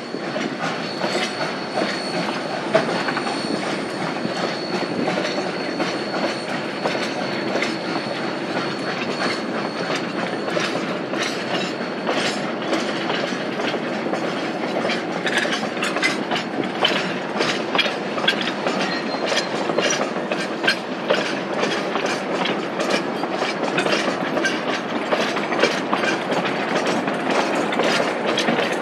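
Narrow-gauge steel flatcars, some loaded with logs, rolling past with their wheels clicking over the rail joints. The clicks get busier and sharper about halfway through. A thin, high, steady squeal runs over the first ten seconds or so.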